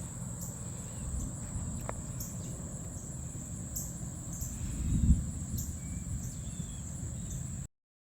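Crickets trilling steadily in a high, even drone over a low rumble, with a brief low thump about five seconds in. The sound cuts off suddenly near the end.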